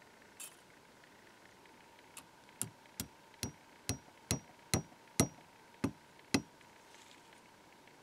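Small hammer tapping a tiny pin through a brass nameplate into a cast iron press: about ten light metallic taps, roughly two a second, growing louder toward the end, some with a brief high ring.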